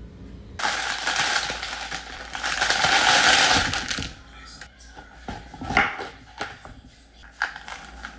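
A loud rustling noise lasting about three seconds, then a run of sharp clicks and crunches as a bell pepper is cut and pulled apart on a bamboo cutting board.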